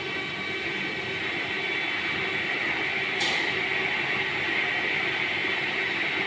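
Steady mechanical roar and hum of a commercial kitchen's lit gas wok burners and ceiling exhaust fan running. A brief sharp hiss or clink sounds about three seconds in.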